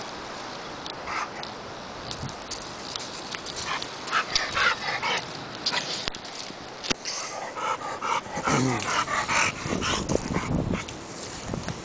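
Black dog making short whimpering and yipping sounds up close, in a cluster about four seconds in and again from about seven to ten seconds.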